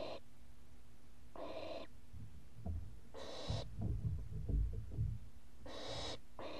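Young barn owls giving their hissing, snore-like begging calls, about four calls each half a second long and repeated every second and a half or so. About halfway through, a run of low thumps and bumps is the loudest part, as an owl moves and takes off at the nest box.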